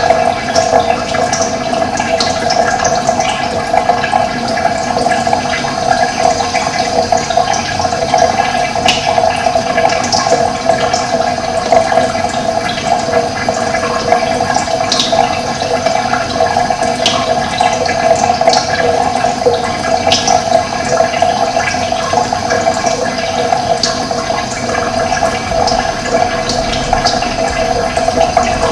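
Running water flowing steadily, with brief birdsong chirps scattered over it.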